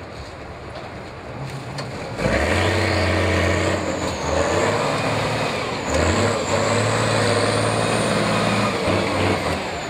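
Diesel engine of a DAF trial truck working hard under load on a steep climb: it runs quietly at first, then surges to full power about two seconds in. It eases off briefly near six seconds and pulls hard again, with a high whine over the engine note.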